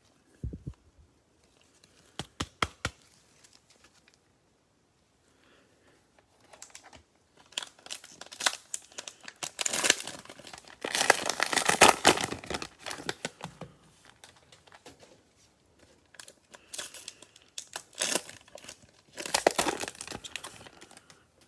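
Cellophane wrapper of a trading-card cello pack being torn open and crumpled, with crinkling that comes and goes and is loudest around the middle. A few sharp clicks come in the first couple of seconds.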